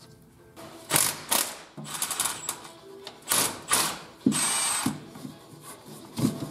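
Ratchet wrench clicking in a series of short bursts about a second apart, with one longer stretch near the middle, as bolts on an NP231 transfer case are worked loose for its removal.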